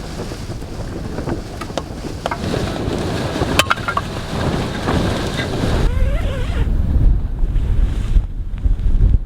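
Blizzard wind buffeting the microphone with a heavy low rumble. Over about the first six seconds there is a noisy rustling with scattered clicks, which then dies down.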